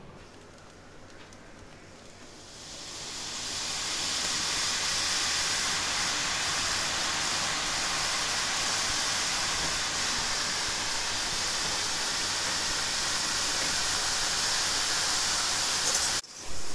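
Strands of chickpea-flour sev (omapodi) dough deep-frying in a steel kadai of hot oil: a steady sizzle. It builds over the first few seconds and cuts off suddenly near the end.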